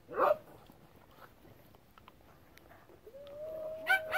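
Small dog giving a short yip just after the start, then a long, steady, high whine from about three seconds in, broken by another short yip near the end.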